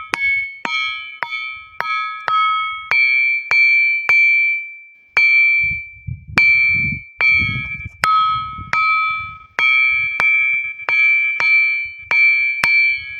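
A ringing rock struck again and again with a small stone: about nineteen sharp strikes, one or two a second, each giving a clear, bell-like 'ṭaṇ' ring that dies away within a second, with a short pause about five seconds in.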